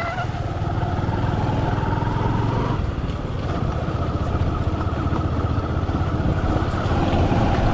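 Motorcycle engine running steadily under way, with a continuous low rumble of road and wind noise.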